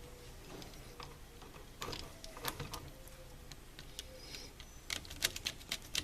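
Faint, irregular small clicks and taps as a black wire is hooked onto a GFCI receptacle's brass terminal screw and worked into place, coming more often near the end.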